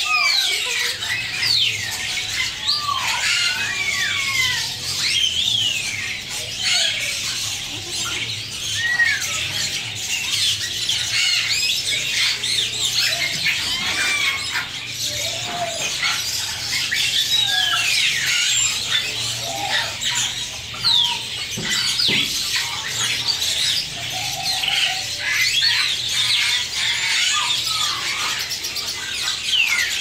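A dense chorus of many caged parrots and parakeets chirping and squawking at once: overlapping short, high calls that slide up and down in pitch, with a faint steady low hum beneath.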